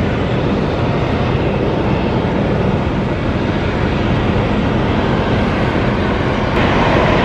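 Airbus A319 jet engines running at taxi power as the airliner rolls past: a steady rumble with a low hum, and a higher engine whine that grows louder near the end.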